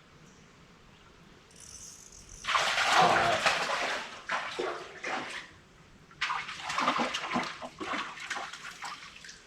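Water splashing in two bouts lasting a few seconds each, the first starting a couple of seconds in and the second after a short pause.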